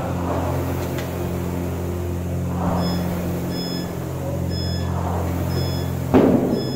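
Air rowing machine's fan flywheel whirring, with a rushing swell about every two seconds as each stroke spins it up, over a steady low hum. About six seconds in there is a sharp knock and a louder rush.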